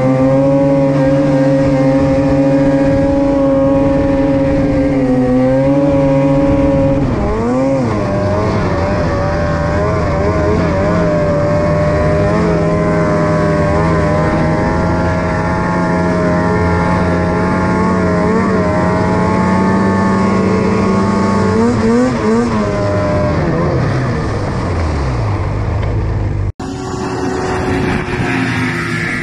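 Snowmobile engine held at high revs as the sled skims across open water, a steady drone that wavers and dips about 7 seconds in, wavers again around 22 seconds, then falls away. About 26 seconds in it cuts abruptly to another snowmobile running across water, a steadier engine note with spray and wind noise.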